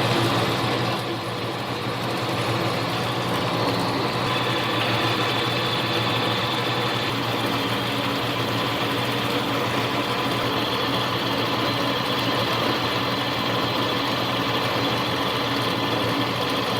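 Small benchtop lathe running at a steady speed while a center drill is fed in to spot the end of a tiny bushing; a steady motor hum with a faint whine.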